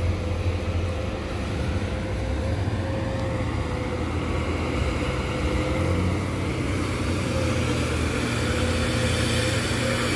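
Diesel engine of a coal-loaded Hino dump truck running steadily under load as it climbs a dirt haul ramp, with a steady low drone and a thin whine above it.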